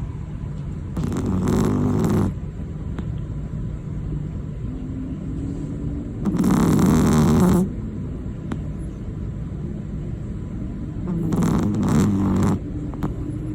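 Chihuahua snoring in deep sleep: three loud snores about five seconds apart, each lasting just over a second, over a steady low hum.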